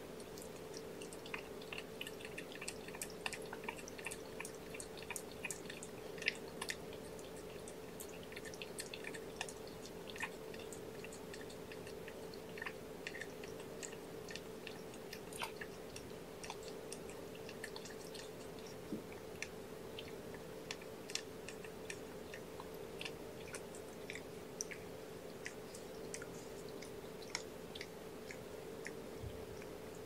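Mother cat licking and grooming her newborn kittens: soft, irregular wet licking clicks, several a second at times.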